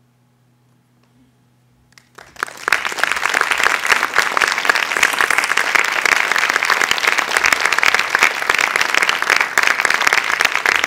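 Audience applause, dense clapping that starts about two seconds in and holds steady, after a faint electrical hum in near silence.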